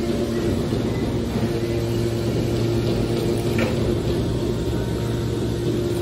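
Hydraulic scrap metal baler running with a steady machine hum from its pump and motor, with a short faint scrape about three and a half seconds in.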